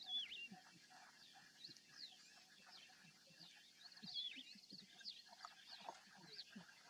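Faint chorus of wild birds: many short whistled chirps and trills. The loudest is a falling whistle just after the start, with another cluster of calls around four seconds in.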